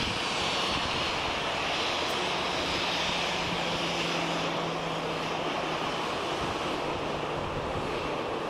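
Boeing 737-800's CFM56-7B jet engines at taxi power as the airliner rolls past: a steady rushing jet noise with a faint low hum underneath.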